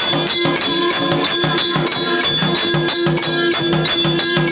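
Electric aarti machine beating temple bell, jhalar cymbal and nagara drum together in a fast, even rhythm of about four to five strokes a second, with metallic ringing over a low drum pulse.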